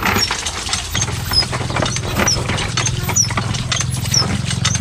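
A small engine running steadily with a low hum, coming in about a second in, with scattered clicks and short high chirps repeating about twice a second.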